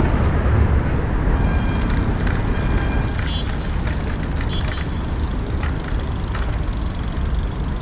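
City street traffic: motor vehicles running and passing, a steady dense rumble with no single event standing out.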